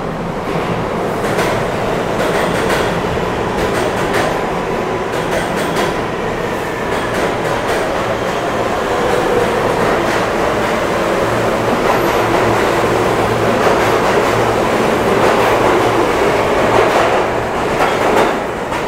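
Kawasaki R143 subway train pulling out of an underground station and gathering speed, wheels clacking over the rail joints. The noise builds as the cars pass and drops as the last car goes by at the end.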